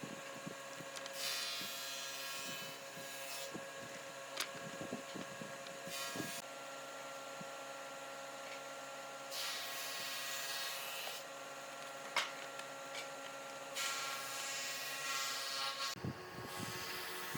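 Abrasive rubbing on wood, in four separate passes of a second or two each, over a steady machine hum.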